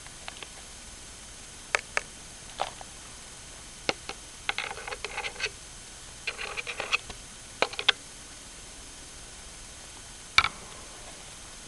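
Budgie making scattered sharp clicks and two short runs of soft, rapid chattering, with the loudest click near the end.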